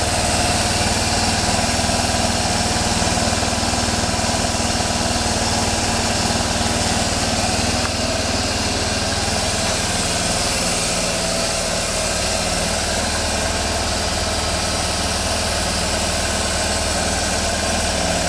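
Suzuki Burgman UH125 scooter's 125cc single-cylinder four-stroke engine idling steadily.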